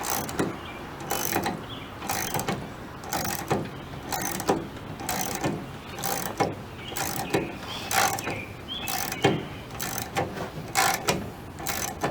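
VW Beetle door hinge pin removal tool being worked by hand to drive out the door hinge pin, with sharp metallic clicks repeating about twice a second.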